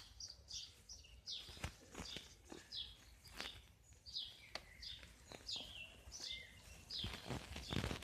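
Small birds chirping over and over, each chirp short, high and sliding downward, with scattered faint clicks in between.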